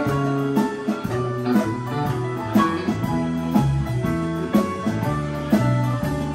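Live band playing a slow instrumental passage with electric guitar, electric bass, keyboard and congas, a strong beat falling about once a second.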